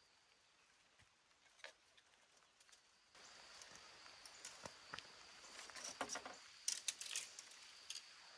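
Light clicks and rustling of thin bamboo stakes being handled and tied into a bean trellis, near silent at first and busier after about three seconds.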